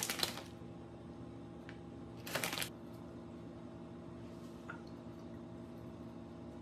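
Two brief rustles of toppings being handled and placed on a tortilla pizza base, one at the start and one about two and a half seconds in, over a steady low hum.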